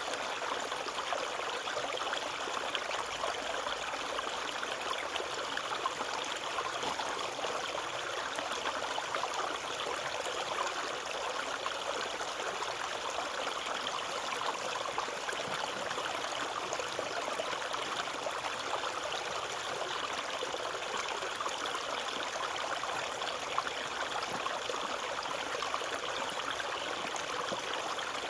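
Small stream running over stones: a steady babbling and trickling of water.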